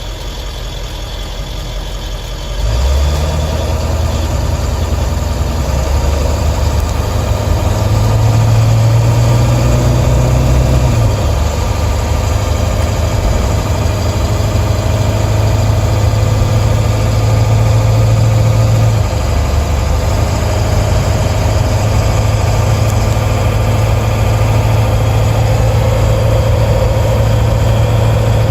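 Ford 7.3 L Power Stroke V8 turbo diesel running while the van drives, heard from inside the cab next to the engine cover. The engine note steps up about three seconds in and again around eight seconds, easing off near eleven and nineteen seconds as the van speeds up and shifts.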